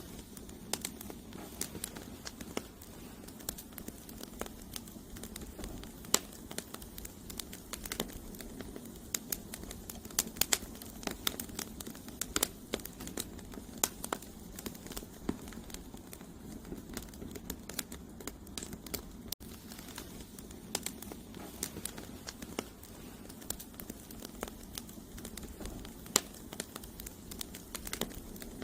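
Firewood burning in a campfire: irregular sharp crackles and pops of the burning logs over a steady low rush of flame.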